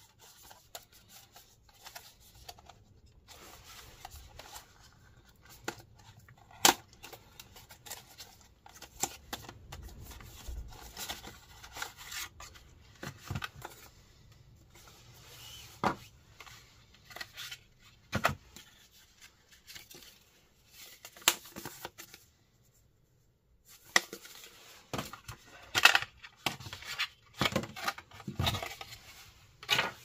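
Handling noise: rubbing and rustling with scattered sharp clicks and taps, a loud click about seven seconds in and a cluster of them near the end, broken by a short pause.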